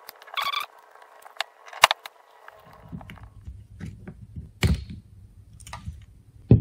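A utility knife blade scraping and clicking against the plastic body of a 1984 Johnson 25 HP outboard's fuel pump as it is pried apart at the seam. It gives a string of sharp clicks and scrapes, with a dull knock about two-thirds in and another sharp knock at the very end as the pump halves come apart and are handled.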